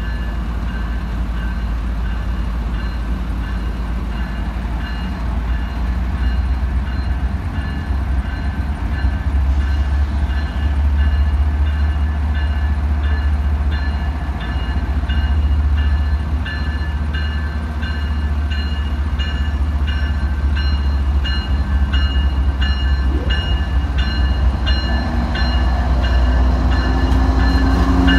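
A train running by with a steady heavy low rumble. From about a third of the way in, a high, evenly repeating ringing grows stronger toward the end.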